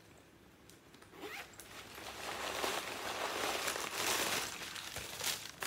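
Rustling and crinkling of the white wrapping around a spare purse strap as it is pulled out of a neoprene handbag. The rustling starts about a second in and keeps going.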